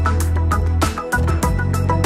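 Background music with a steady beat, about four strokes a second, over a sustained bass line.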